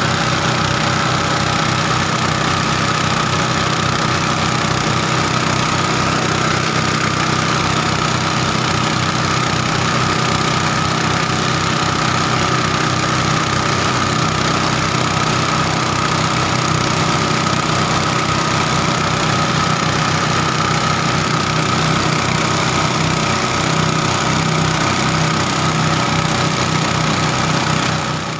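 An engine running steadily at idle with an even, rapid low chugging and a steady whine over it.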